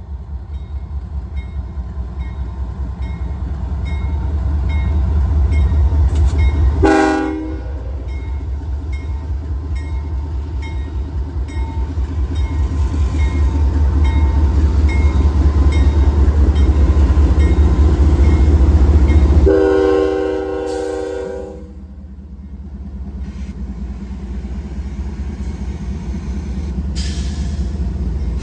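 CSX freight train locomotives passing with a steady low diesel rumble that swells and fades. The locomotive horn sounds a short blast about seven seconds in and a longer blast of about two seconds about twenty seconds in.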